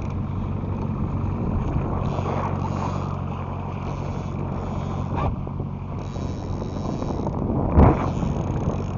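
Fishing boat's motor running steadily, with wind and water noise. A single thump near the end is the loudest moment, with a smaller knock a little before it.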